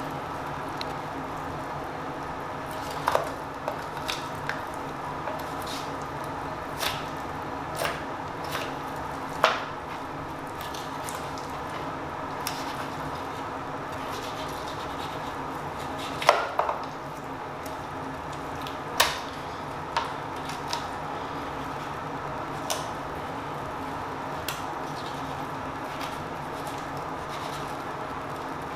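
Kitchen work: irregular clicks and knocks of utensils and dishes over a steady background hum, with a few louder knocks spread through.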